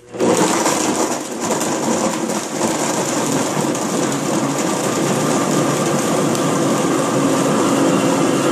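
Blendtec Designer 625 blender motor switching on suddenly and running loud and steady, its blade blending a jar of ice, frozen fruit and liquid into a smoothie.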